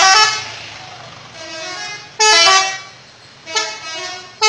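Telolet horn sounding its multi-note tune in a string of short blasts, each a chord of horn tones that step in pitch, some loud and one fainter.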